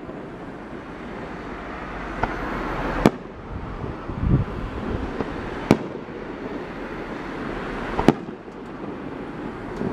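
Fireworks exploding: three sharp bangs a little over two seconds apart, with a fainter bang before them, another near the end, and a low thump in between.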